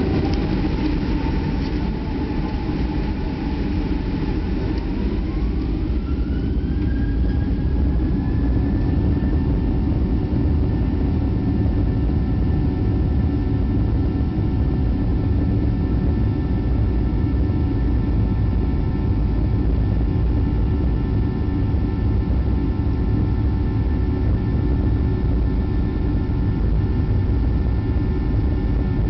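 Boeing 737-800's CFM56-7B turbofan engines, heard from inside the cabin beside the wing, spooling up to take-off thrust. A whine rises between about five and eight seconds in, then holds steady over a strong low rumble through the take-off roll.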